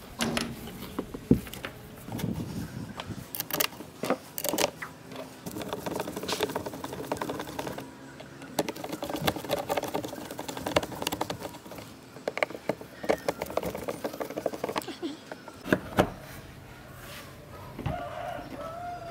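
Hand screwdriver turning screws into a plastic fan base and steel mounting plate: a run of rapid small clicks and scrapes as the screws turn, with scattered knocks as the plastic parts are handled and set down.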